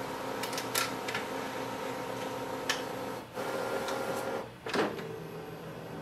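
Epson WorkForce Pro WF-4820 all-in-one scanning a page fed through its automatic document feeder: a steady motor hum with several light clicks in the first second, the hum changing pitch about three seconds in and again after a sharper click near the end.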